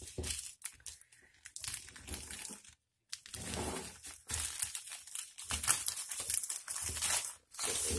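Plastic courier mailer crinkling and rustling as hands handle it and cut it open with scissors, in irregular bursts with a short break about three seconds in.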